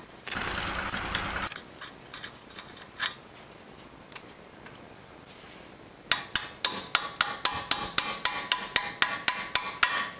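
A ratchet wrench clicks briefly near the start. About six seconds in comes a run of some twenty sharp, ringing metal hammer blows, about five a second, on the steering knuckle of a Hummer H3's front suspension, knocking the upper ball joint loose from the knuckle.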